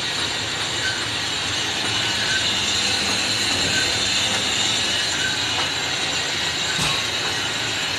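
Metal lathe running steadily with a tractor flywheel spinning in its chuck for facing, a continuous mechanical hum with a high whine. A faint short chirp repeats about every second and a half.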